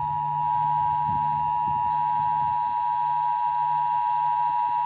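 Emergency Alert System attention tone: one steady, unbroken high tone, with a faint low hum beneath it.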